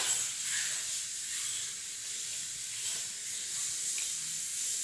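Steady high background hiss with a few faint, light clicks.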